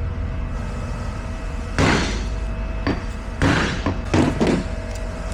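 Brass hammer striking the pinion yoke of an AAM 3.27 differential to knock it off the pinion: about five heavy knocks at an uneven pace, each with a short ring. The yoke stays put.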